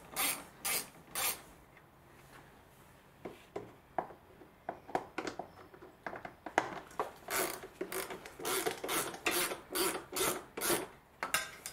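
Hand screwdriver with a T25 Torx bit undoing the screws on a headlight's plastic mount: a run of short scratchy strokes, three at the start, a pause, then about two to three a second from around three seconds in.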